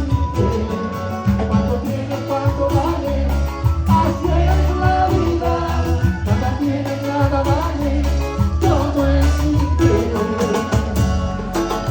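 Latin American music with a steady bass line, plucked strings and a sung or played melody.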